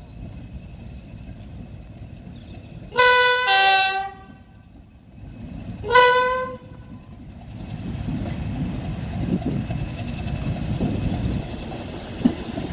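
Class 31 diesel locomotive sounding its two-tone horn, a high note then a low one about three seconds in, then one short high note about three seconds later. After that the English Electric diesel engine and the wheels on the rails grow louder as the train draws into the platform, with a single sharp knock near the end.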